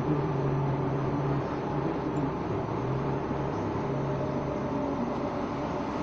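Engine drone and road noise heard from inside a moving vehicle, a steady low hum that shifts a little in pitch.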